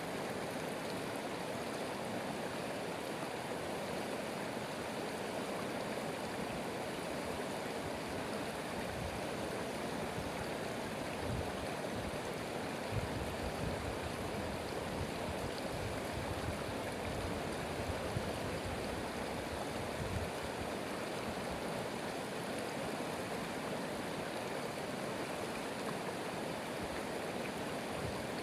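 A stream running steadily: an even rush of flowing water, with a few brief low bumps about halfway through.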